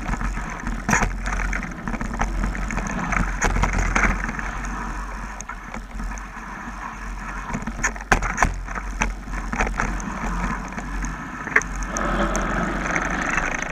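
Mountain bike descending a rocky dirt trail at speed, heard from a camera mounted on the bike: a continuous rushing of wind and knobby tyres on dirt and gravel, with frequent sharp knocks and rattles as the bike bounces over stones and roots.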